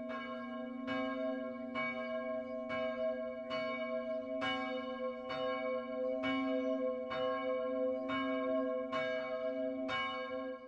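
A single church bell tolling, struck at an even pace of a little more than one stroke a second, its low hum note ringing on between strokes.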